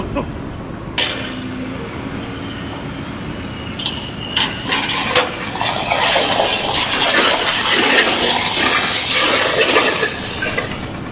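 Water gushing and splashing: a rushing noise that grows much louder about five seconds in, with a few knocks, then cuts off suddenly.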